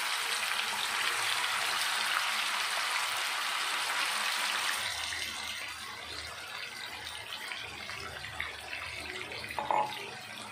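Raw chicken pieces sizzling in hot oil in a frying pan, the oil bubbling hard as the water in the freshly added meat boils off. The sizzle is loudest for the first four or five seconds, then settles to a quieter, steadier frying hiss.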